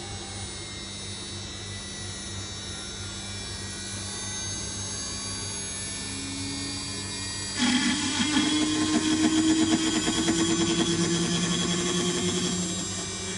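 CNC router spindle running with a steady whine, then, a little past halfway, the end mill bites into a wooden block and a louder cutting noise with a fast rattle takes over, its pitch wavering as the cut goes on.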